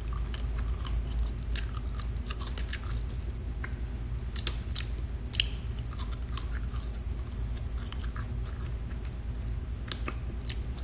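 A person eating lobster close to the microphone: chewing with many small irregular clicks and cracks from the shell, two sharper ones about halfway through. A steady low hum runs underneath.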